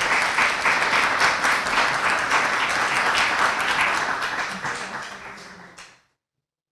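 Audience applauding with dense clapping that fades away near the end.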